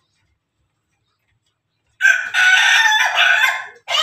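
Rooster crowing loudly, starting about halfway in: one long call broken by a brief pause, with a second part beginning just before the end.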